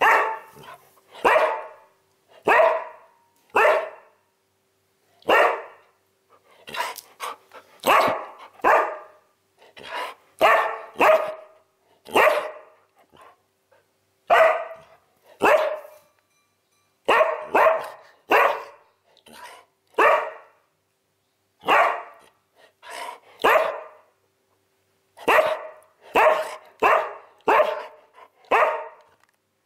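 Siberian husky barking over and over, short loud barks coming in quick runs of two or three with brief pauses between.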